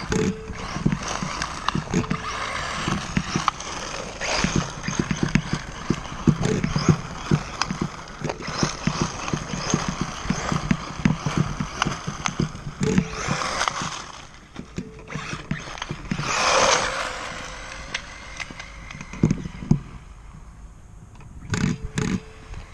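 Onboard sound of a 1:8 scale RC buggy being driven over rough ground: a dense run of irregular knocks and rattles from the chassis and wheels over a rushing noise, with a louder rushing swell about sixteen seconds in and a quieter stretch near the end.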